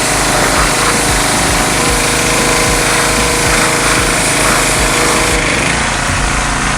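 Loud power tool running steadily with a fast rattling beat; its sound changes about five and a half seconds in.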